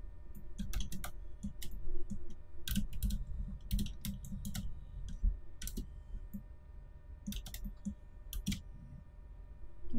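Computer keyboard keystrokes: scattered single clacks and short quick runs of key presses, at an uneven pace.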